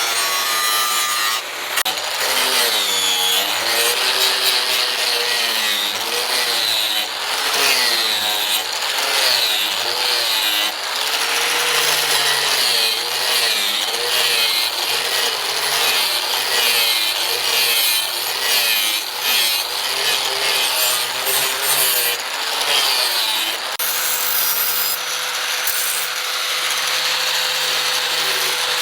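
Electric power tool working on a piece, its motor pitch dipping and recovering again and again as it is pressed into the work. Near the end the load eases and the motor runs at a steady pitch.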